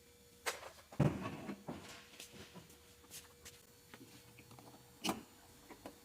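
A few irregular knocks and clunks, about five over several seconds, with faint rustling and handling noise between them.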